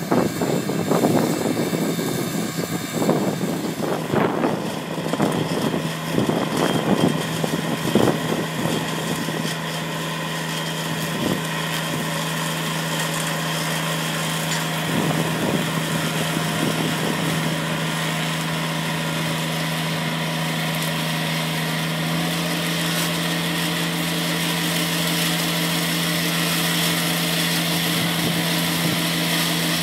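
Compact tractor engine running steadily, powering a Cochet Viper tractor-mounted hydraulic hedge trimmer whose rotary blade head cuts through the hedge. Sharp cracks and knocks come through during about the first ten seconds, then the sound settles to a steady hum.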